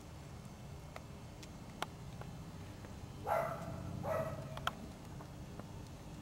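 A dog barks twice, two short barks about a second apart, with a few faint clicks before and after.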